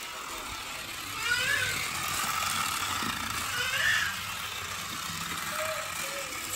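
Small battery motor of a Magic Tracks light-up toy car whirring as it runs along its flexible plastic track, with a child's short high voice sounds breaking in about a second in, near four seconds and again near the end.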